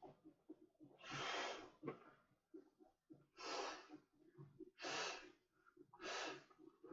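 A person blowing by mouth into the valve of an inflatable raft: four long, forceful breaths about a second and a half apart, with soft ticks and rustles between them.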